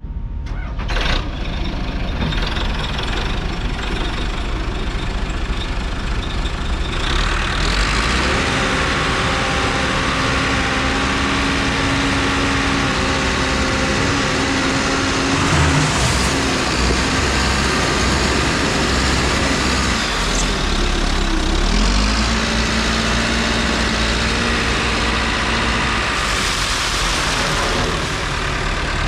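Tractor loader backhoe's diesel engine running steadily, picking up speed about seven seconds in, with its pitch sagging briefly twice later on.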